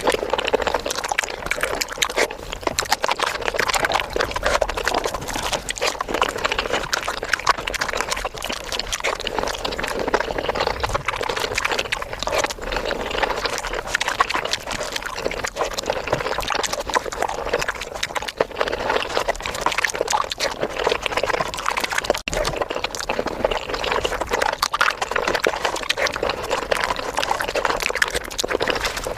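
Close-miked eating sounds sped up: a dense, continuous stream of wet chewing, smacking and mouth clicks from eating saucy paneer butter masala.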